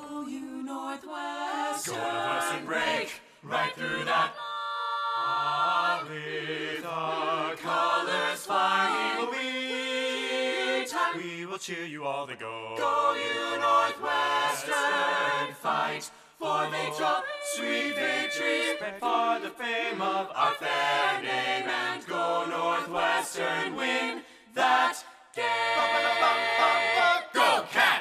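Music: an a cappella vocal group singing, several voices in harmony.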